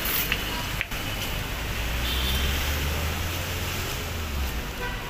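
Street traffic noise, with a motor vehicle's low engine rumble passing from about two seconds in until about four and a half seconds in.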